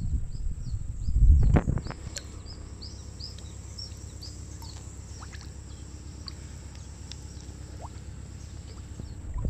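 Outdoor ambience: short high chirps from small wild creatures, two or three a second, over a steady high drone and a low rumble. A louder burst of low rumbling noise comes about a second and a half in.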